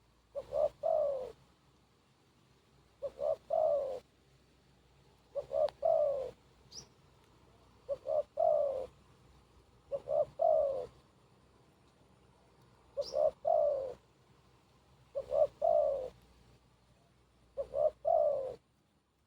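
Spotted dove cooing: a short phrase of a few coos repeated eight times, about every two and a half seconds. Another small bird gives a faint high chirp twice.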